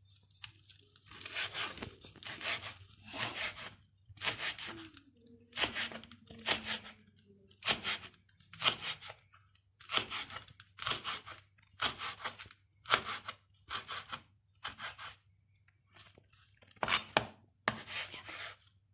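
Knife chopping fresh parsley leaves on a cutting board, a steady run of short strokes roughly one a second.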